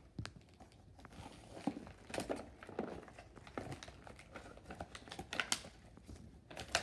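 Cardboard and plastic packaging crinkling and rustling in irregular crackles and small clicks as cardboard inserts are ripped out of a toy box.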